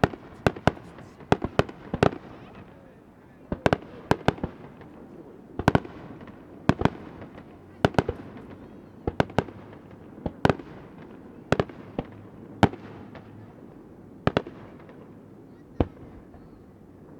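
Aerial firework shells bursting in an uneven run of about twenty sharp bangs, sometimes two or three in quick succession, each with a short echoing tail.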